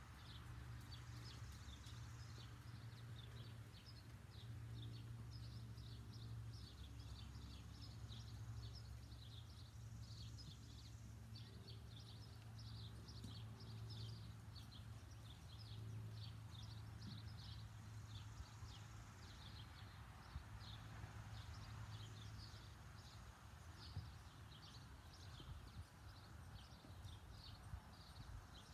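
Faint outdoor ambience: many short, high chirps come and go throughout over a low, steady hum.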